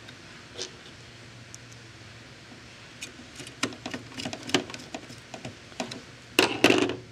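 Small screws being driven with a Phillips screwdriver into the plastic frame of a Coinco Mag bill validator: light clicks and scraping from about three seconds in, then a louder burst of handling noise near the end.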